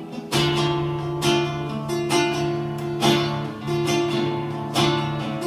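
Acoustic guitar strumming chords in a steady rhythm, about one strong strum a second: the instrumental introduction before the singing comes in.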